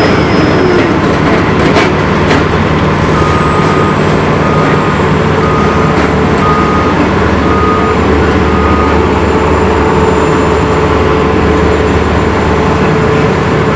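Heavy diesel engines of an asphalt paver and a dump truck running steadily as the truck's raised bed feeds asphalt into the paver. A backup alarm sounds about six short beeps, roughly one a second, starting a few seconds in.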